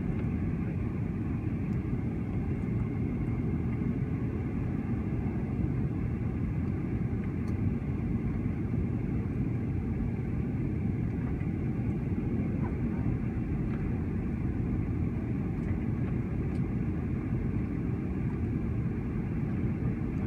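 Jet airliner cabin noise heard at a window seat on the descent into the airport: a steady low rumble of engines and rushing air.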